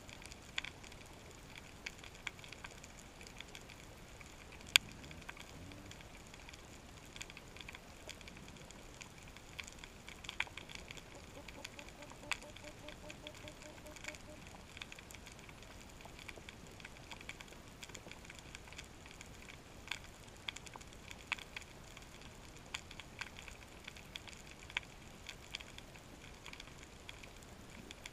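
Faint underwater crackle of snapping shrimp on a reef: a steady haze of irregular sharp clicks, with one much louder snap about five seconds in. A faint pulsed low hum comes and goes briefly around the middle.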